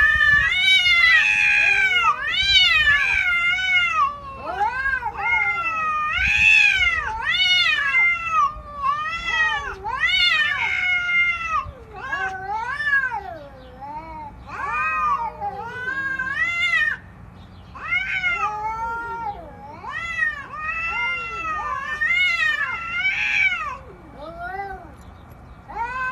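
A cat meowing over and over, a long string of short rising-and-falling meows, about two a second, louder in the first half.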